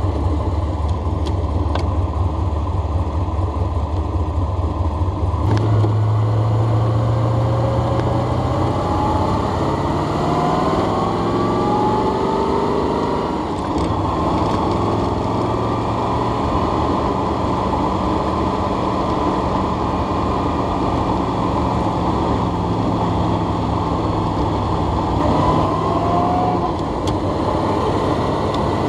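1968 Corvette's 427 V8 with three two-barrel carburettors running under way. The engine note steps up about five seconds in and climbs in pitch for several seconds. It drops briefly about halfway, then holds steady and rises again near the end.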